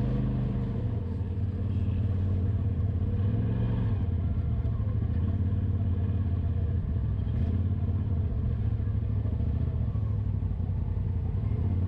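Side-by-side UTV engine running steadily at low speed, a constant low hum heard from on board the vehicle as it creeps along.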